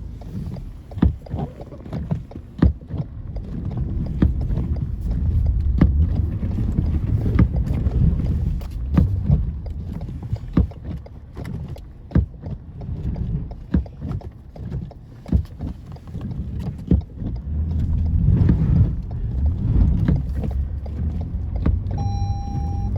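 Car driving through deep unplowed snow, heard from inside the cabin: a steady low rumble of tyres and road noise with frequent irregular knocks and thumps. A short electronic beep sounds near the end.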